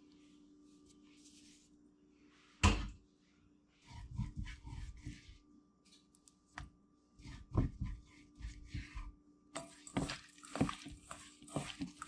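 A hand mixing and tossing small floured fish with seasoning in a stainless steel bowl: a run of short handling sounds, scattered at first and getting busy near the end. About two and a half seconds in there is one sharp knock, the loudest sound, and a faint steady hum runs underneath.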